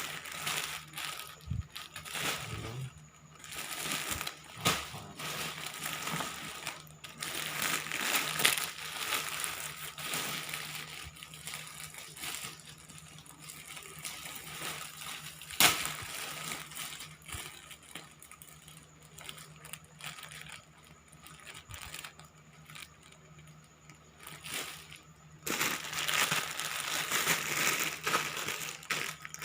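Plastic packaging crinkling and rustling as clothes are handled, in irregular bursts with scattered clicks and one sharp snap about halfway through; it quietens for a while, then picks up again near the end.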